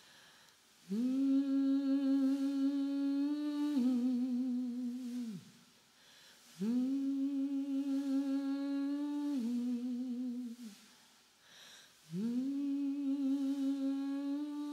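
A voice humming three long, low notes, each scooping up into its pitch, held, then dipping a little with a wavering before sliding away. The third note begins about twelve seconds in and is still held at the end.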